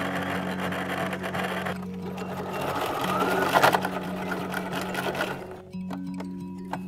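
Electric sewing machine stitching through a glossy plastic sheet, a rapid run of needle strokes that stops a little over five seconds in. Background music plays underneath.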